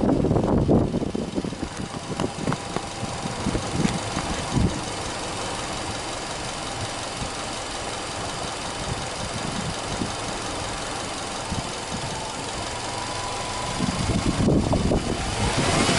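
Subaru Legacy 2.0GT's EJ20 turbocharged flat-four engine idling steadily, heard from the front of the car with the bonnet open.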